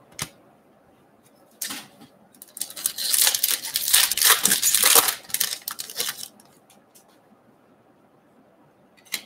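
Foil wrapper of a baseball card pack being torn open and crinkled by hand: a crackling stretch of about three and a half seconds, with a brief crinkle before it and a short one near the end.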